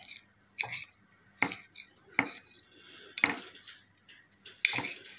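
A kitchen knife cutting bananas on a glass plate, the blade clinking against the glass in about six sharp, separate strikes roughly a second apart.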